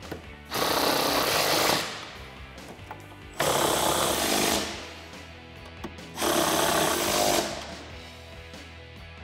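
Cordless impact driver hammering nuts down on studs in three bursts of about a second each, tightening them. Background music runs underneath.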